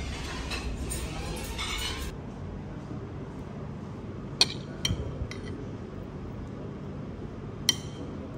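A metal spoon clinking against a ceramic plate as it cuts into a piece of kunafa. One sharp clink comes about four seconds in, a quick pair and a lighter tick follow just after, and another sharp clink comes near the end.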